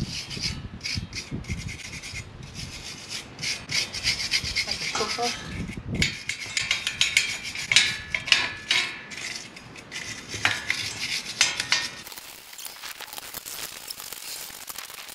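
Hand-held steel wire brush scrubbed back and forth over a rusted ornamental iron door grille, in quick, irregular scratchy strokes that take off the worst of the rust. The strokes get quieter for the last few seconds.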